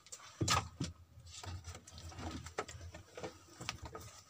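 Scattered light clicks and knocks from things being handled and moved about, the loudest about half a second in.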